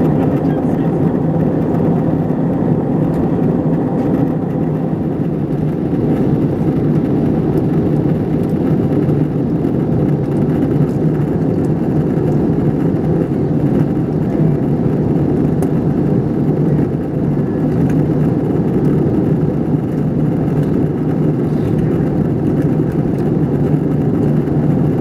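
Steady engine and airflow noise inside the cabin of an Airbus A321ceo airliner in flight, descending. It is an even, unbroken hum, strongest in the low-middle range.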